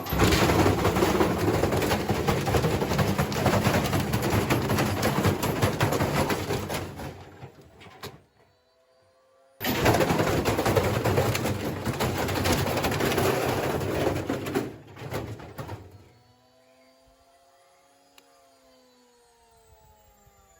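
Washing machine being run to destruction, making a loud, dense rattling and banging noise that fades away, stops, then comes back suddenly and fades out again. Afterwards a faint motor whine rises and falls in pitch.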